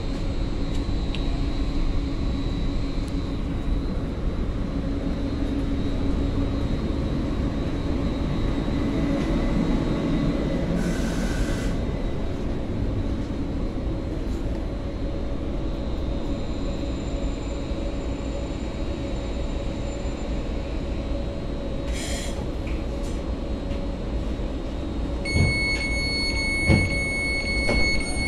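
Cabin rumble of a Caltrain Stadler KISS electric multiple unit as it pulls into a station and comes to a stop, with a brief hiss about eleven seconds in. Near the end a steady electronic door chime starts, with two short thumps as the doors are released.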